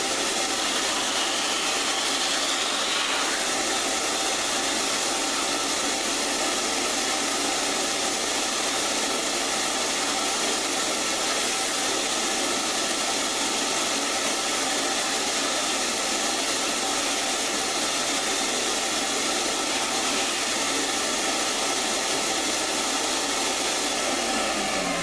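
Electric motor of a power tool running steadily with a high, even whir, then switched off near the end, its pitch falling as it winds down.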